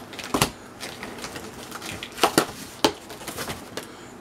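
Cardboard boxes being handled and shifted, with rustling and a few sharp knocks: one about half a second in, a pair a little after two seconds, and another just before three seconds.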